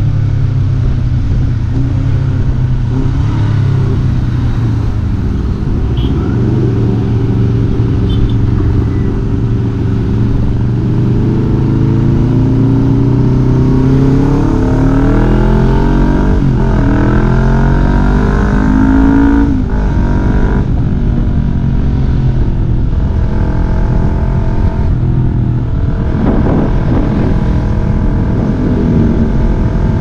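Honda CBR250RR's parallel-twin engine breathing through a Leovince LV One exhaust with the dB killer fitted, heard from the rider's seat while riding. The exhaust note rises and falls with the throttle, the pitch climbing and then dropping several times, most plainly in the middle.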